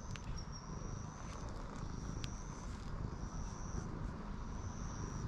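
A brown tabby-and-white cat purring steadily while being stroked on the head and cheek, a low continuous rumble.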